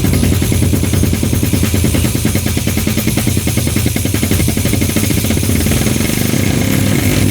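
Dark MIDI music played with sitar and ringtone sounds. Extremely dense, rapid-fire notes blur into a loud, steady, buzzing rattle over a low held drone.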